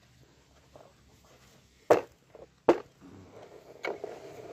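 Hard plastic toy truck parts knocking as a thin metal axle with wheels is fitted into the chassis: two sharp knocks a little under a second apart, a fainter one about a second later, then a low rubbing of handling near the end.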